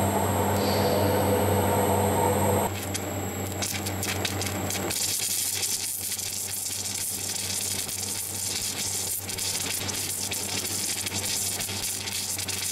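Submerged arc welding head welding a pipe seam under a mound of granular flux: a steady crackling sizzle that sets in about five seconds in, after a steady hum at the start.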